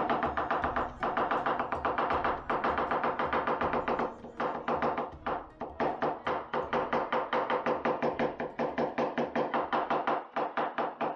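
Chinese cleaver chopping rapidly on a wooden cutting board, mincing ginger, in an even run of sharp strokes several times a second. Background music plays throughout.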